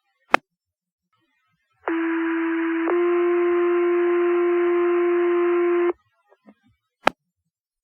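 Two-tone sequential pager alert on a fire dispatch radio channel: a steady tone of about a second steps straight into a second, longer tone of about three seconds, which cuts off abruptly. These are the tones that set off the volunteer firefighters' pagers. A sharp radio click comes shortly before the tones and another about a second after them.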